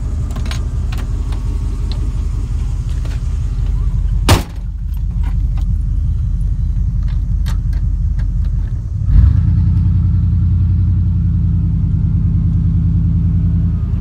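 Truck engine idling with a steady low drone, a single sharp bang about four seconds in, and the engine growing louder about nine seconds in.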